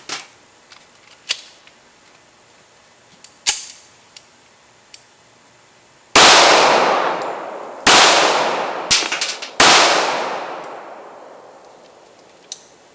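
Three handgun shots about a second and a half apart, each with a long fading echo, fired at a hardened steel spinning target. Sharp metallic clicks come before the first shot and between the second and third.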